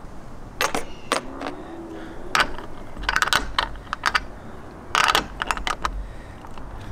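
A combination wrench and stainless steel hardware clinking as an M8 eye bolt's nylock nut is tightened in a rooftop tent's mounting track. Irregular sharp metallic clicks and rattles come in short clusters, the densest about three and five seconds in.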